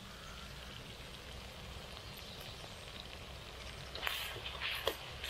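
Onions and tomatoes frying in oil in a pan, a faint steady sizzle. About four seconds in the sizzling grows louder, with a few sharp knocks.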